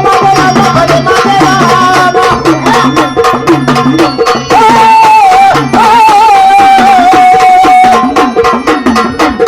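Gondhal folk music: a singer's voice with fast, rhythmic sambal drum strokes and keyboard accompaniment, the melody holding a long wavering note through the middle.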